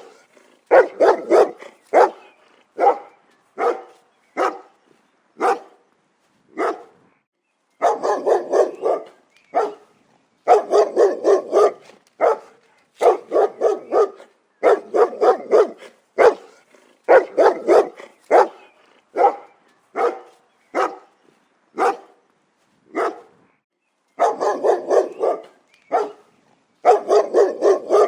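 A dog barking over and over, in runs of several quick barks with short pauses between the runs.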